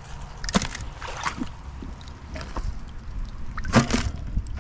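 Scattered knocks and clunks of rusty scrap and magnet-fishing gear being handled, the loudest about four seconds in as a crusty find is put into a plastic bucket, over a steady low rumble.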